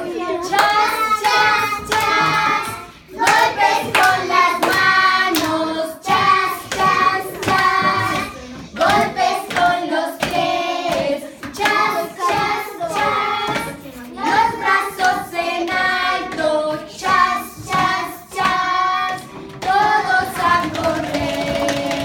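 Young children singing a song together, with hand beats keeping a steady rhythm.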